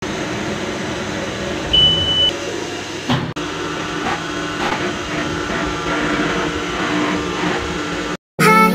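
CNC vertical milling machine running inside its enclosure: a steady mechanical hum and whine from the spindle and axis motors. A short high beep sounds about two seconds in. Music starts just before the end.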